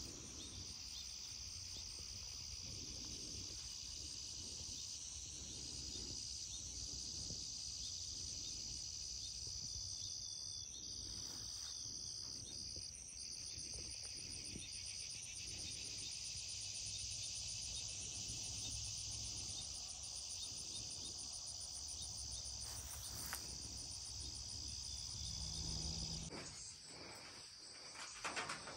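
Steady, high-pitched outdoor insect chorus that cuts off abruptly near the end.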